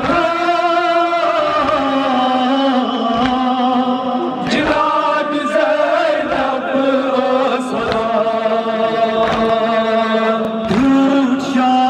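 Men chanting a Kashmiri noha, a Muharram lament, into handheld microphones in long held lines, two lead singers taking turns. Dull thumps of chest-beating (matam) land about every second and a half under the singing.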